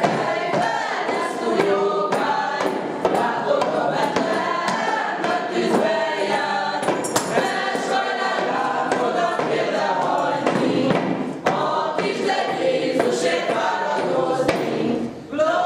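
A group of young voices singing a Hungarian Christmas hymn together.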